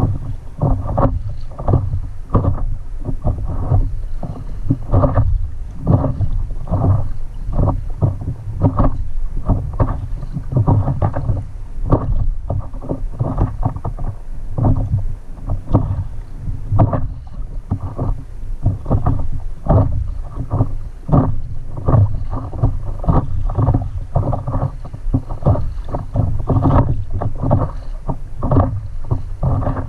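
Water slapping and splashing against a stand-up paddleboard in light chop, irregular slaps a few times a second, over a steady low rumble of wind on the microphone.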